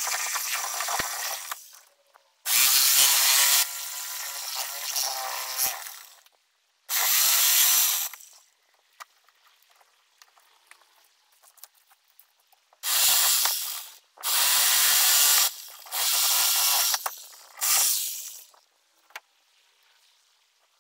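Electric power tool run in repeated short bursts, about six in all, each lasting one to three seconds with quiet gaps between. The pauses grow longer in the middle, and the bursts come closer together near the end.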